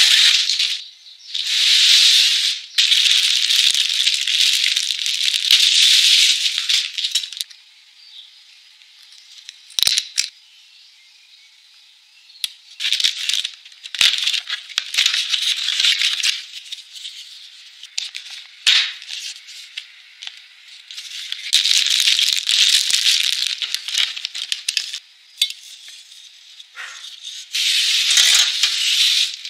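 Cardboard box and packing being handled: several bursts of rustling and scraping a few seconds long, with short quiet gaps, as flaps are opened, a cardboard insert is lifted out and plastic wrap crinkles. A couple of sharp knocks about ten and fourteen seconds in.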